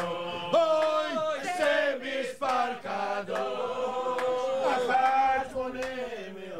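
Male voices singing a slow, unaccompanied Jewish-style melody in long held notes that slide from one pitch to the next.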